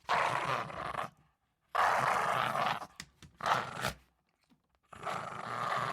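Small dog growling in four bouts, each lasting from about half a second to nearly two seconds, with short breaks between them.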